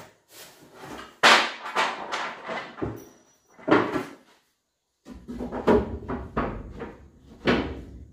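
Thin wooden strips knocking, clattering and scraping against each other and the table as they are picked up and handled, a series of separate knocks with the loudest about a second in and more in a cluster during the second half.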